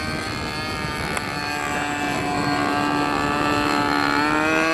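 Propeller and motor of a radio-controlled model aircraft built as a flying lawnmower, buzzing steadily in flight. It gets gradually louder and rises slightly in pitch near the end as it comes closer.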